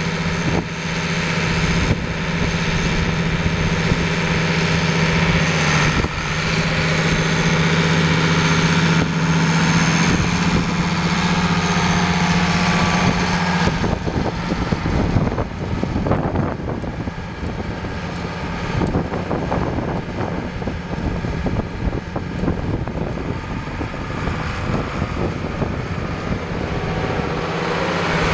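International 986 tractor's D436 six-cylinder diesel running as the tractor drives across gravel. The engine note is steady until about halfway, then turns rougher and more changeable as the tractor turns and approaches.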